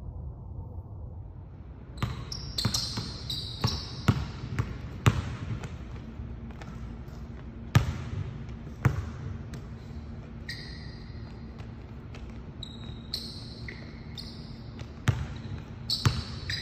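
Low wind rumble for about two seconds, then a basketball bouncing on a hardwood gym floor: a dozen or so irregularly spaced thuds that echo in the large hall, with short high-pitched sneaker squeaks on the court between them.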